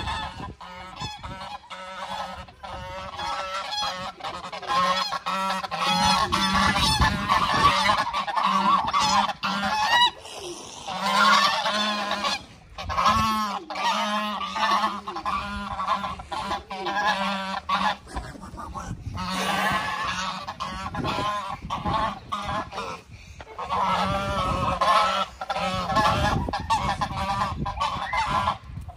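A small flock of domestic geese honking loudly and almost without pause, several birds calling over one another, agitated.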